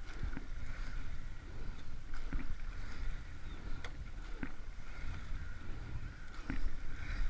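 Racing eight rowing at a steady stroke: a short knock comes with each stroke about every two seconds, over a steady wash of water and low wind rumble on the microphone.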